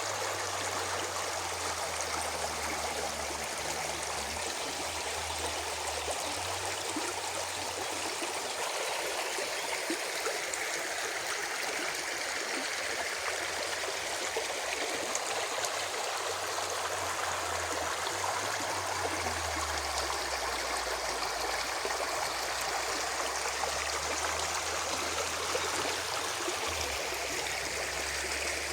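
Spring water running and gurgling over stones in a steady, continuous flow.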